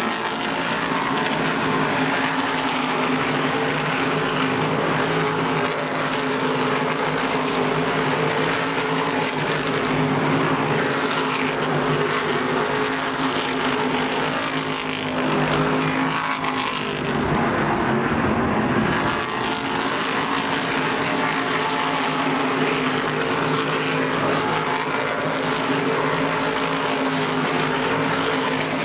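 A pack of Whelen Modified race cars running at racing speed, their V8 engines blending into one continuous, steady sound that dips and shifts in pitch briefly about halfway through.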